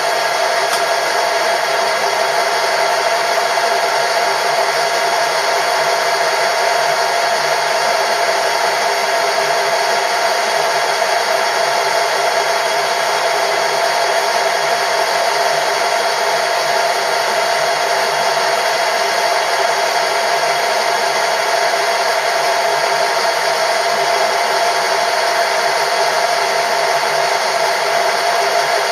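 Machine-shop power tool running steadily at constant speed, a loud even hum with a few fixed tones and no change in load.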